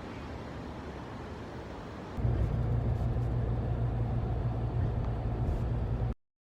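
Steady outdoor background noise, joined about two seconds in by a loud, low rumble that cuts off abruptly near the end.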